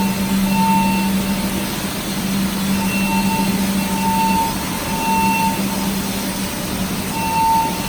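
Water gushing steadily from a burst fire-sprinkler pipe. Over it, a mid-pitched alarm tone sounds on and off at uneven intervals, with a low steady hum underneath.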